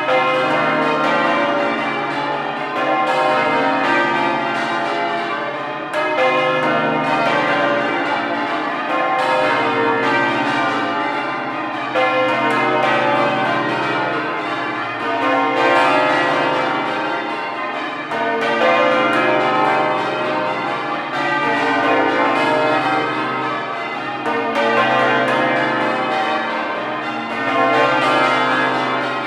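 The heavy ring of twelve church bells in Exeter Cathedral's south tower, being rung in changes: a continuous, rapid succession of bell strikes, swelling in loudness about every three seconds.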